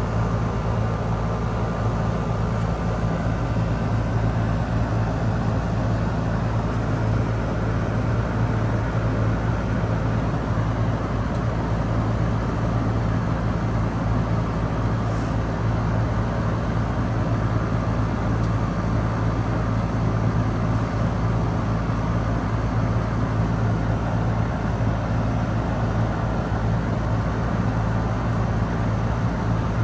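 Outdoor heat pump equipment running: a steady low electrical-mechanical hum under a constant rushing noise, with no change through the stretch.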